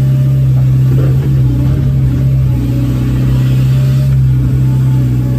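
Caterpillar 320 GC excavator's diesel engine running at a steady working pitch, heard from inside the cab while the boom and bucket dig a trench.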